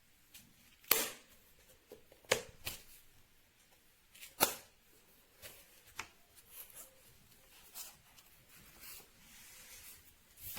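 Handling noise: five sharp clicks or taps in the first six seconds, the loudest about a second in and about four and a half seconds in, with softer rustling and ticks in between.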